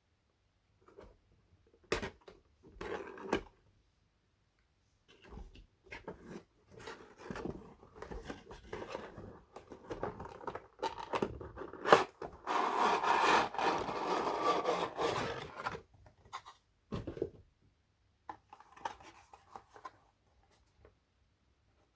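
A diecast model car's cardboard box and plastic packaging being handled and opened by hand: on-and-off rubbing and scraping with sharp clicks, busiest and loudest for a few seconds past the middle.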